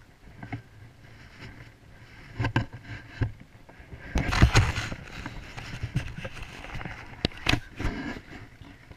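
Handling noise on a small action camera as it is moved about: a few knocks, a loud stretch of rubbing and rustling near the middle, and two sharp clicks later on.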